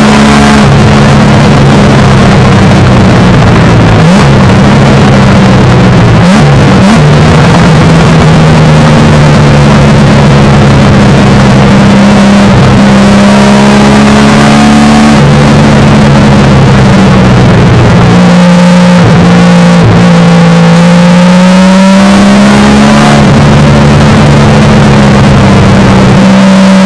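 1971 Triumph GT6's straight-six engine running hard under racing load, heard loud from inside the cabin. The pitch dips briefly about four seconds in and again around six to seven seconds, then climbs steadily later on.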